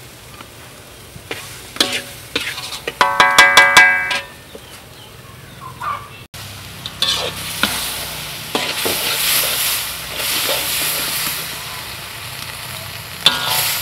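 Metal spatula scraping and clanking in a steel wok, with a loud ringing scrape about three to four seconds in. From about seven seconds a kapi (fermented shrimp paste) mixture sizzles steadily as it fries.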